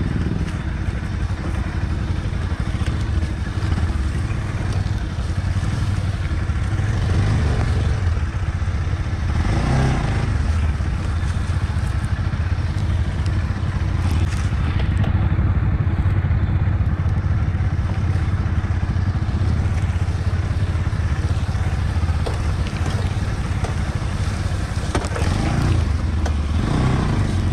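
Bajaj Pulsar NS200's single-cylinder engine running at low speed, heard from the rider's seat as the bike crawls over a rough, grassy trail. The engine swells briefly about ten seconds in and again near the end.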